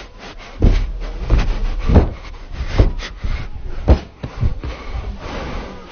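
A parkour runner's feet and hands landing on obstacle boxes: a run of heavy thumps, roughly one every half second to a second, the strongest about two, three and four seconds in.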